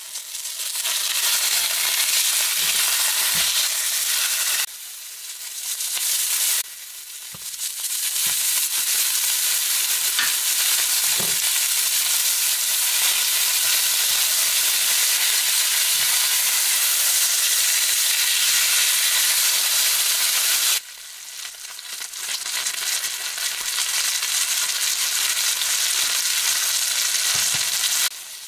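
Steak sizzling as it fries in a hot pan: a loud, steady hiss that drops suddenly a few times and then picks up again.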